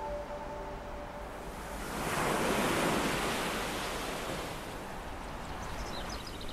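Ocean waves breaking: a surge of surf that swells about two seconds in and slowly washes away. A few short high chirps, like small birds, come near the end.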